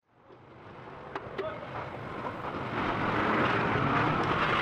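Street-food stall ambience fading in from silence: a steady noisy hiss with a low rumble underneath, and two sharp clicks a little after a second in.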